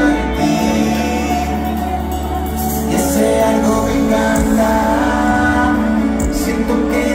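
Live amplified concert music with a singer's voice over strong bass, heard from within the crowd.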